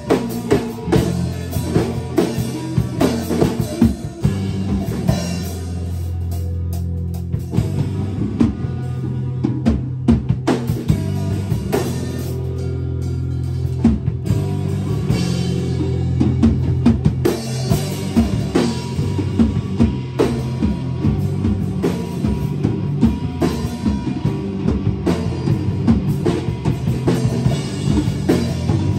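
Live instrumental rock band jam: a drum kit with kick, snare and cymbals played busily, an electric guitar through an amplifier, and a bass guitar holding long low notes that change every few seconds. About five seconds in the drums thin out for a few seconds under held chords, then come back in full.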